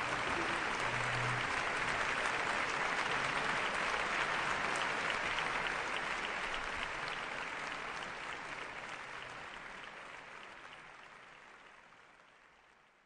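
Concert audience applauding steadily after an orchestral performance, then fading out over the last several seconds.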